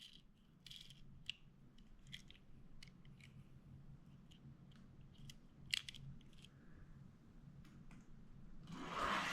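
Faint scattered clicks and small crinkles of a die-cast toy car being handled. Near the end comes a rising rush as the car starts rolling along a toy race track.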